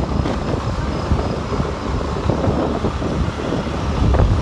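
Road noise from a moving vehicle, with wind buffeting the microphone in irregular low thumps.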